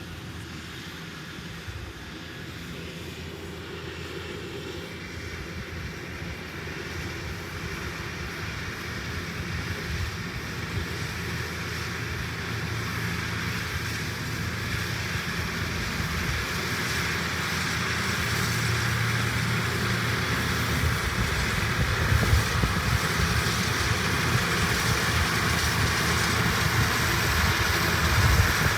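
Farm tractor engine running under load with its field implement, drawing steadily nearer and growing louder.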